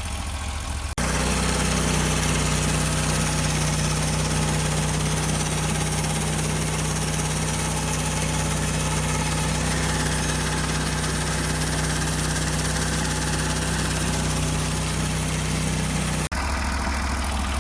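Bandsaw mill's engine running under load as the band blade saws a 1 3/4-inch board from a log, a steady hum with a hissing cutting noise over it. It starts abruptly about a second in and stops abruptly near the end, with the engine idling quieter on either side.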